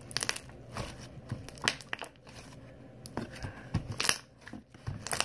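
Sticky homemade slime being squished and worked by hand, giving irregular crackling and popping clicks.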